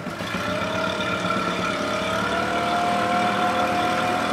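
Outboard motor on a small open speedboat running as it pulls out close by, its pitch rising a little about two seconds in and then holding steady as it gets louder.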